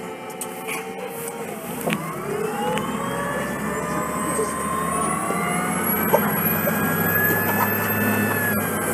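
Cummins C Gas Plus natural-gas engine and Voith DIWA automatic transmission of a 2006 Orion VII city bus accelerating, its whine rising steadily in pitch for several seconds. The pitch drops near the end.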